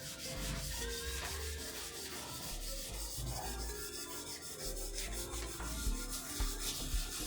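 Sandpaper rubbed by hand over a car's steel body panels in repeated scrubbing strokes, sanding back the old paint before a respray.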